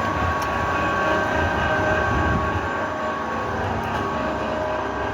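Brick-making press running steadily: a machine hum with several steady tones over an uneven low rumble.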